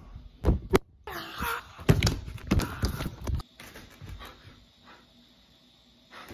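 A sharp bang, then knocks and loud scuffling close to the microphone for a couple of seconds that cut off abruptly, followed by quiet with a short breath near the end.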